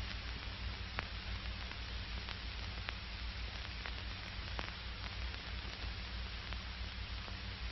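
Steady hiss and low hum of an old film soundtrack, with a few faint crackles.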